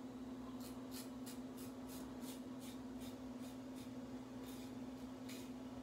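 Single-edge GEM-style safety razor scraping through several days' stubble on the upper lip: a series of short rasping strokes, about three a second at first, then fewer and further apart. A steady low hum runs underneath.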